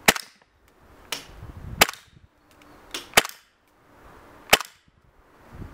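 Tokyo Marui HK45 Tactical gas blowback airsoft pistol fired semi-automatically with its suppressor off: four sharp shots, roughly one and a half seconds apart. Each is a pop of gas with the metallic clank of the slide cycling, and fainter clicks come between the shots.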